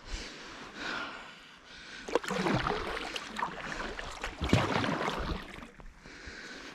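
Sea kayak paddle strokes pulling through calm water: two main swells of splashing about two seconds apart, with a few sharp knocks.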